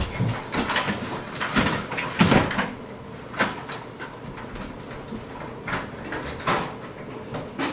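Scattered knocks, clicks and rustles of a person moving about a room and handling furniture, irregular and spread through the whole stretch.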